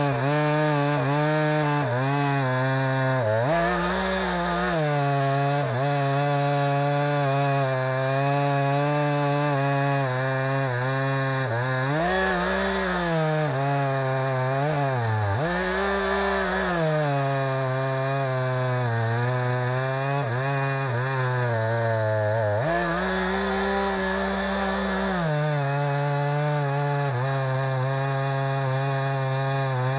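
Chainsaw milling a log lengthwise into a square beam, the engine running steadily under load through the cut. Its pitch rises and falls back four times as the load eases, at about 4, 12, 16 and 24 seconds in.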